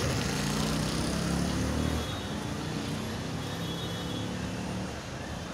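Engine of a nearby motor vehicle running, loudest for the first two seconds and then fainter, over a steady hiss.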